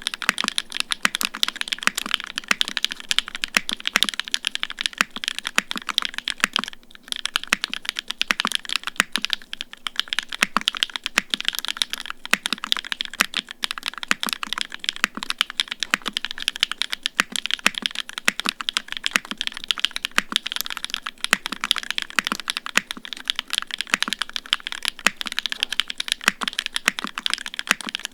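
Continuous fast typing on a Singa Unikorn 60 custom mechanical keyboard: hand-lubed SW x Gateron Onyx UHMWPE-stem linear switches in an O-ring-mounted FR4 plate with no foam, under GMK Red Alert keycaps. A dense stream of keystrokes, with a brief pause about seven seconds in.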